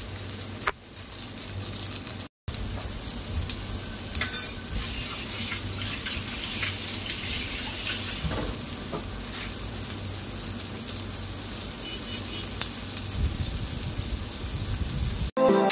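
Eggplant omelette sizzling as it fries in shallow oil in a nonstick pan, a steady sizzle with scattered crackles and pops.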